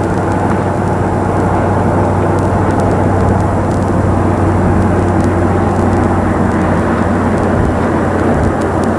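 Truck driving along: steady engine and road noise with a strong low hum.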